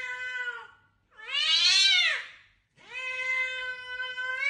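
A domestic cat yowling in long drawn-out calls: one trails off under a second in, a louder, higher one rises and falls around the middle, and a third starts about three seconds in and holds a steady pitch.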